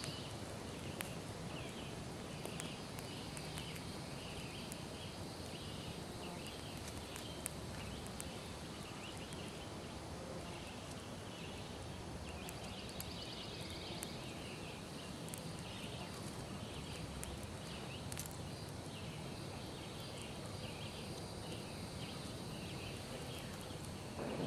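Small twig fire burning quietly with sparse faint crackles, over a background of faint repeated chirping. Near the end a soft rush of breath begins as the embers are blown on.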